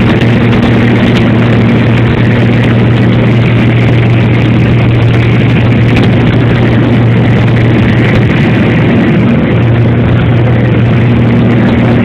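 Airplane engines droning steadily in flight, heard from inside the cabin: a loud, even rushing noise with a constant low hum.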